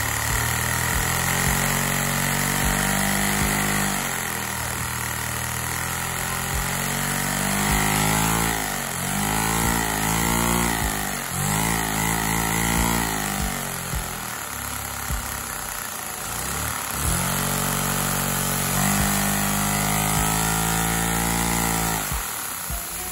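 Single-cylinder LEGO vacuum engine running on suction from a vacuum hose, a fast mechanical chatter whose pitch rises and falls as it speeds up and slows down, with several quick revs in the middle. A steady vacuum-cleaner whine runs underneath.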